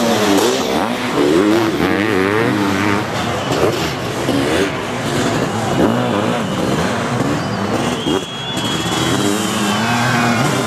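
Sidecar motocross outfits' engines racing, revving hard with pitch rising and falling constantly as they accelerate and shift. The loudness dips briefly about eight seconds in.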